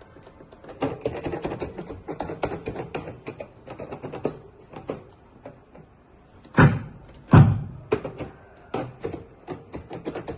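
Handling clatter: a run of clicks and knocks, with two heavier thumps about two-thirds of the way through.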